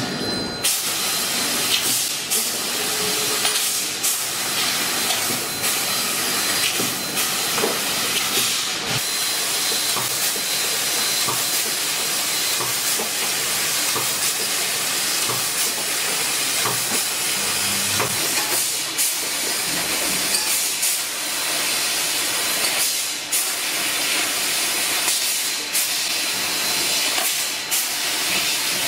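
CNC fibre laser pipe cutting machine at work on stainless steel pipe: a steady hiss, typical of the cutting head's assist gas, with a few scattered clicks and knocks from the machine's moving parts.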